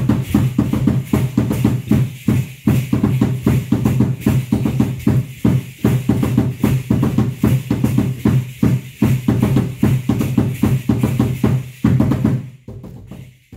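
Drum-led percussion music with a fast, steady beat on a deep drum. It drops away shortly before the end, leaving a few lighter, sparser hits.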